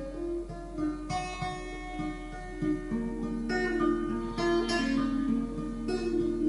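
Acoustic guitar playing plucked notes that ring on and overlap, the picking a little busier in the second half.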